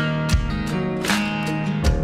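Background music with strummed acoustic guitar chords and a low drum hit about every second and a half.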